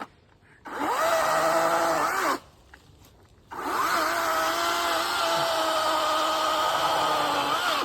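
Chainsaw run at full throttle in two bursts, a short one of about a second and a half, then, after a brief pause, a longer one of about four seconds. Each rises in pitch as it opens up and cuts off sharply.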